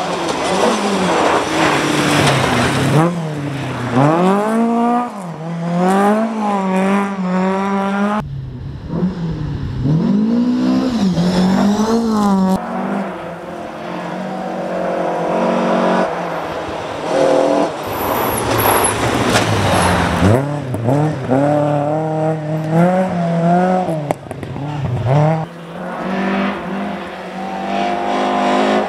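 Rally cars driven flat out past the camera one after another, engines revving high and dropping back through gear changes. The engine sound breaks off abruptly twice where one car gives way to the next.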